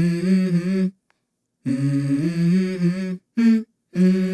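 An unaccompanied voice singing a wordless tune in held notes that step up and down. The phrases are broken by short silent gaps about a second in and again just past three seconds.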